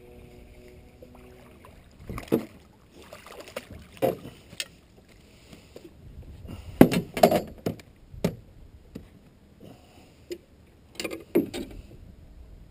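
Irregular knocks and clatter of gear being handled in a small aluminum boat, each hit ringing briefly off the hull; the loudest pair comes about seven seconds in and another pair near the end.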